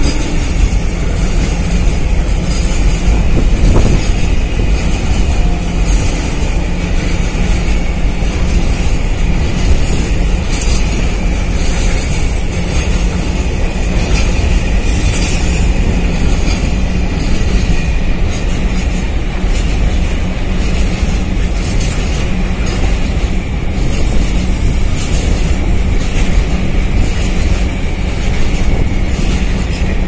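Container freight train passing close by at speed: a loud, steady rumble of steel wheels on rail, with a frequent clatter of wheels over rail joints. A thin high squeal rises over it for a few seconds near the end.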